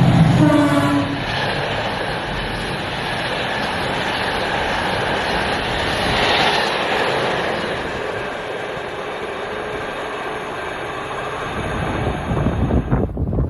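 British Rail Class 68 diesel-electric locomotive and its train passing, its Caterpillar V16 diesel engine note strongest in the first second. It then gives way to a long rush of wheel and rail noise that swells about six seconds in and cuts off suddenly near the end.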